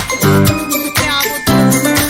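Background music with a steady beat of low pulses and tinkling high notes.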